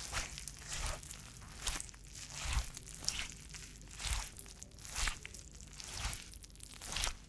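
A mop pushed back and forth across a floor: repeated swishing, scrubbing strokes, about one a second.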